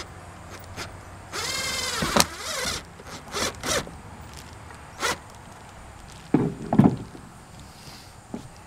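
Cordless drill driving a screw through metal roof trim: a whine of about a second that rises and then falls, followed by a shorter run. After that come several sharp clicks and knocks of the metal trim being handled.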